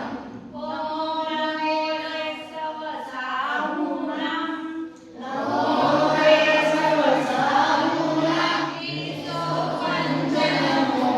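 A group of voices, children among them, chanting a devotional prayer together in long held sung phrases.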